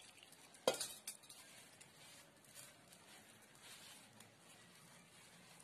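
Hands mixing and kneading a damp gram-flour batter in a steel plate: faint soft rubbing and squishing, with a sharp click just under a second in.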